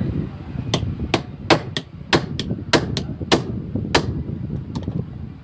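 Hammer tapping repeatedly on the jammed ignition lock being worked free, about ten sharp strikes in some three seconds at an uneven pace, then a couple of faint clicks.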